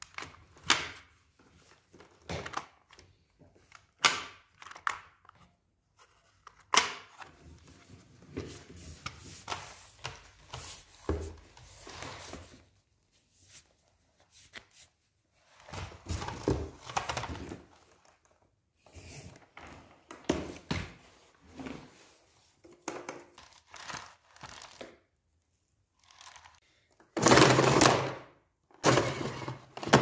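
Plastic knocks, clicks and rustling as the parts of a Kiwi 4105 canister vacuum cleaner are handled and fitted together: floor brush, extension tube and hose. The handling comes in short irregular bursts, loudest near the end.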